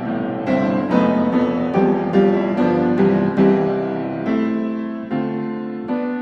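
Background music: a piano playing a slow melody of single notes and chords, each note struck and left to ring out, about two a second.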